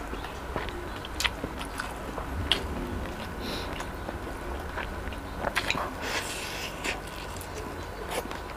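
A person biting and chewing fried chicken, with sharp clicks at irregular moments and a denser cluster of them past the middle.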